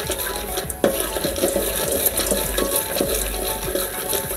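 Wooden spoon stirring dry popcorn kernels in a little oil in a metal pot on a gas burner, the kernels scraping and rattling against the pot in quick irregular strokes. The kernels are heating and have not yet started to pop.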